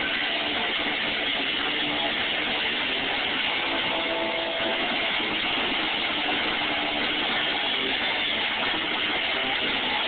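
Rock band playing loud in an arena, heard from the crowd: electric guitars over a dense, unbroken wall of sound, dull-topped and without let-up.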